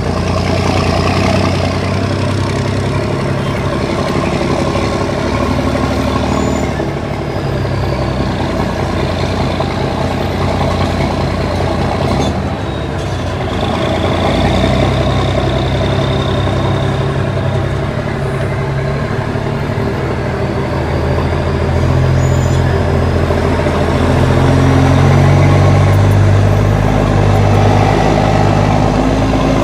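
Cummins ISX inline-six diesel of an International ProStar truck running under way. Its note drops and climbs again several times as the revs change, with a faint high whine sliding in pitch above it, and it grows louder near the end.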